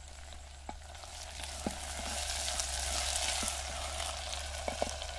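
Cut okra frying in oil in a pot, sizzling steadily and growing louder about two seconds in, with a few light taps of a wooden spatula as it is stirred.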